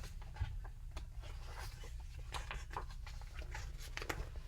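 Room tone with a steady low hum and scattered faint clicks and light rustles.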